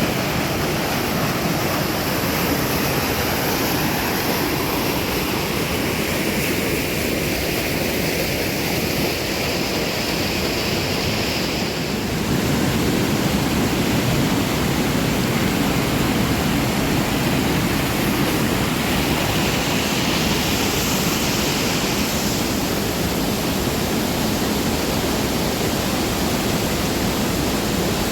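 Waterfall rushing: a steady, dense hiss of falling water, slightly louder and fuller from about twelve seconds in.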